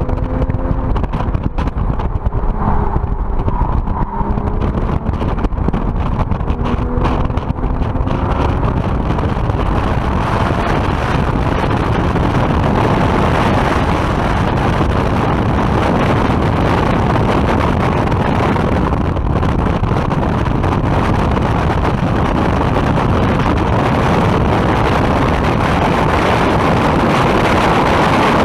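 A car's engine pulling hard at track speed, its pitch rising and falling through the first several seconds. It is then buried under steady, heavy wind noise on an outside-mounted camera as the car runs flat out down a straight.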